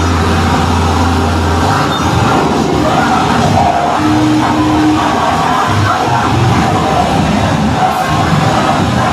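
Loud live harsh noise and hardcore music played through a PA: a dense wall of distorted sound, with a low steady drone in the first second or two and a held higher tone about four seconds in.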